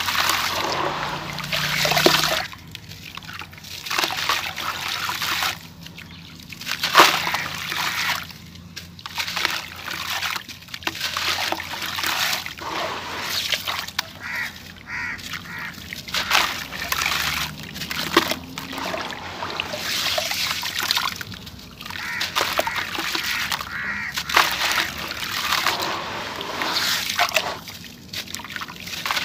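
Hands crumbling and squeezing lumps of dry sand-cement under muddy water in a tub: sloshing, splashing and dribbling water, coming in irregular bursts a second or two long with short pauses between.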